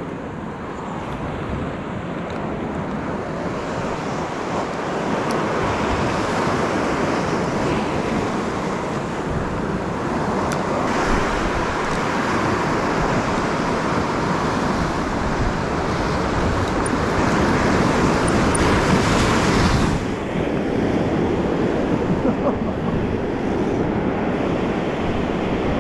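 Ocean surf breaking and washing over a rock platform, with wind buffeting the microphone. The wash swells louder for several seconds, then drops off suddenly about three-quarters of the way through.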